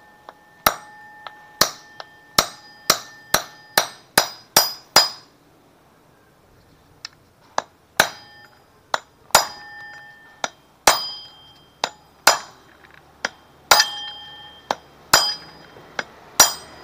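Sharp knocks of a wooden block driving a sealed bearing into a Honda Vario's final-gear case, each blow followed by a brief metallic ring. About ten quick blows come first, then a pause of a couple of seconds, then about a dozen more spaced more slowly.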